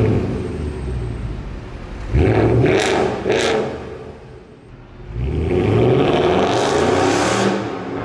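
Mercedes W204 C63 AMG's 6.2-litre M156 V8, secondary catalytic converters kept and resonator deleted, revving through the exhaust. It is blipped in short revs with a couple of sharp cracks, then pulls away about five seconds in, the pitch rising as it accelerates.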